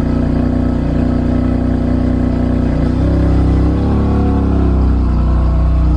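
BMW F80 M3's S55 twin-turbo inline-six running at cold-start high idle, heard at the quad tailpipes through SSR downpipes and the stock exhaust. The idle is steady, wavering briefly about halfway through before settling again.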